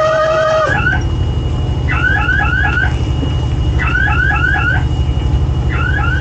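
Electronic alarm sounding in repeated bursts of four or five quick rising chirps, a burst about every two seconds, over a steady low engine drone.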